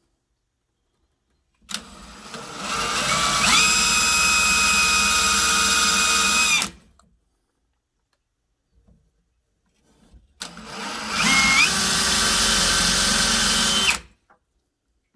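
Power drill spinning a 1/2-inch Forstner bit into the edge of a door slab to bore shallow holes about 3/16 inch deep. There are two runs, of about five and three and a half seconds, and each speeds up to a steady whine before stopping abruptly.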